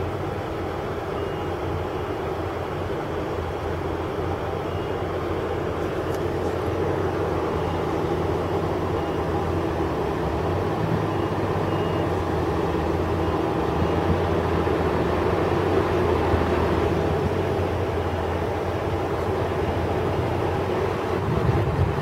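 Truck engine and road noise heard from inside the cab: a steady low drone that grows slightly louder.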